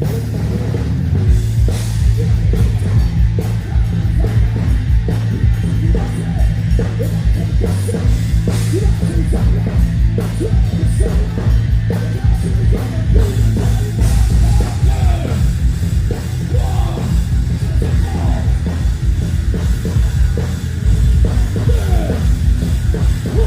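A rock band playing loud heavy metal at a sound check: distorted electric guitar over a pounding drum kit and heavy bass, continuous throughout.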